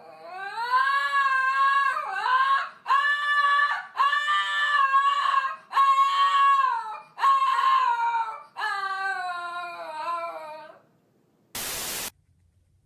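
A cat yowling in a string of about seven long, drawn-out wails, each a second or so, then a brief burst of hiss near the end.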